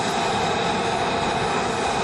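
F-35B's single Pratt & Whitney F135 jet engine running on the ground, a loud, steady rushing noise with a high whine held at an even pitch.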